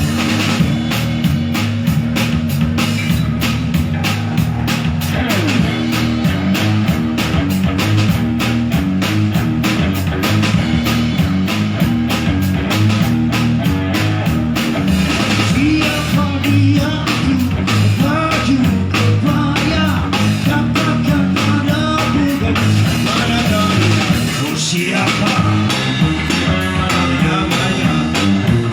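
Live rock band playing: a drum kit keeps a steady beat under bass and electric guitar.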